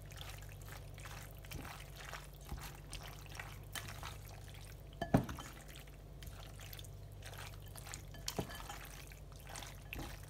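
Wet, squelching stirring of tomato sauce through penne pasta with a silicone spatula in a ceramic dish, with a couple of sharper knocks about five and eight seconds in, over a low steady hum.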